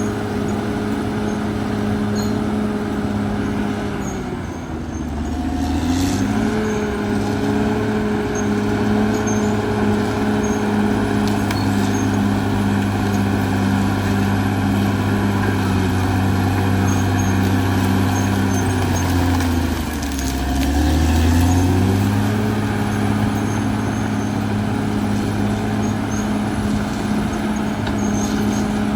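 Caterpillar D6R XL bulldozer's diesel engine running steadily; its pitch sags and climbs back twice.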